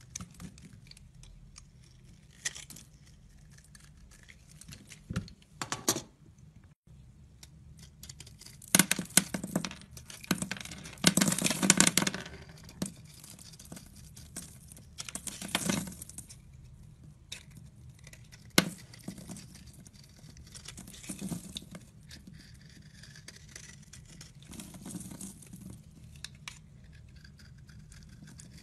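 Utility-knife blade slicing and shaving a dry bar of soap, thin flakes scraping and crackling off in short crisp bursts. The loudest run of cuts comes a little before the middle, with scattered sharp clicks.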